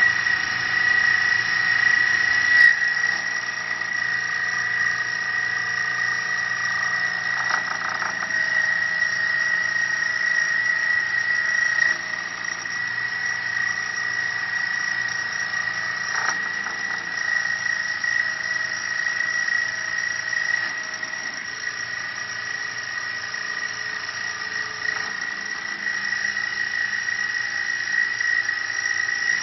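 Mini CNC wood lathe turning a wooden cup blank, its spindle and cutter running with a steady high-pitched whine over the noise of the tool cutting the wood.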